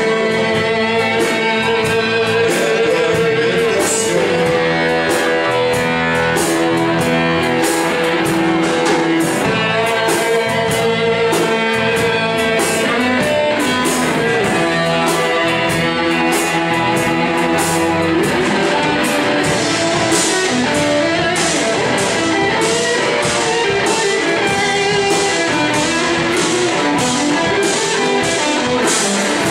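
Live rock-blues band playing loudly: electric guitars over bass and a drum kit, with a guitar line carrying the melody and steady cymbal and drum strokes.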